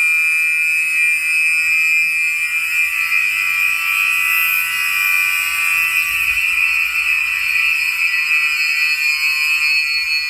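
Gentex SHG fire alarm horns sounding a continuous steady high-pitched tone, with no pauses or coded pattern.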